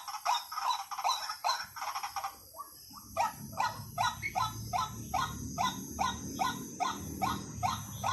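White-breasted waterhen calling: a long run of short, repeated notes, quick at first, breaking off briefly about two seconds in, then going on steadily at about three calls a second.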